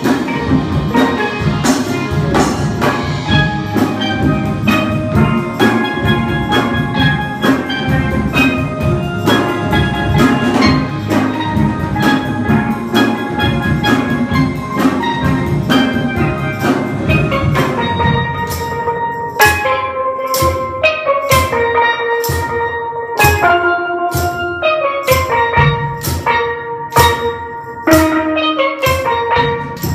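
Steel band of several steel pans playing a pop song arrangement together, backed by a drum kit and hand drums. About two-thirds of the way through, the low, full backing drops away and the pan melody carries on over sparser drum hits.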